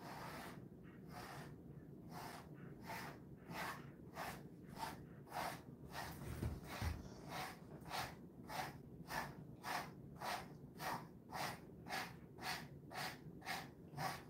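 Grooming brush stroking through a Jindo dog's thick coat, a short brushing rasp about twice a second, becoming quicker and more even about halfway through. There is a low thump around the same point.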